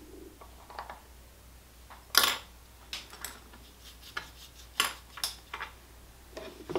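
A miniature's painting handle is set down on a wooden desk with a sharp clack, followed by a string of lighter taps and clicks of small painting tools.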